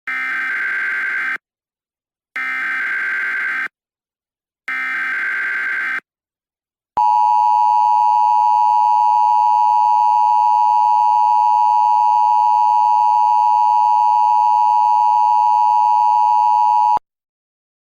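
Mock Emergency Alert System header: three short bursts of buzzing SAME data tones about a second apart, then the two-tone EAS attention signal held steady for about ten seconds before cutting off.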